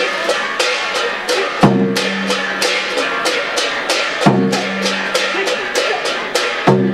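Chinese drum percussion: rapid, loud strikes with ringing decays, and a deeper ringing stroke about every two and a half seconds.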